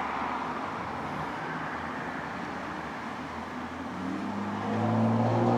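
Steady background noise, then an engine hum that comes in and grows louder about four seconds in.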